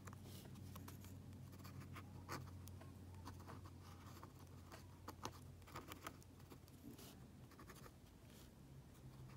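Steel dip-pen nib scratching across textured watercolor paper in short, irregular strokes, faint, over a low steady hum.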